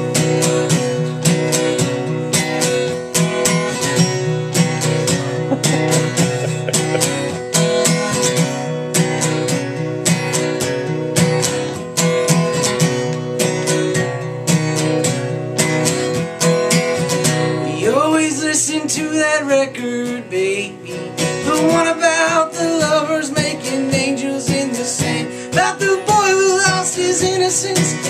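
Acoustic guitar strummed in a steady rhythm, playing a song's intro. About eighteen seconds in, a man starts singing over it.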